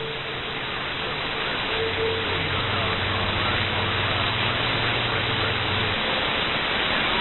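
Steady hiss of radio static from a receiver tuned to 11-metre CB channel 6 (27.025 MHz), with a faint low hum under it and no voice on the channel.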